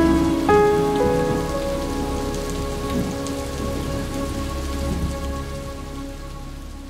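Steady rain falling under held instrumental notes that shift about half a second and again a second in, the whole fading out gradually.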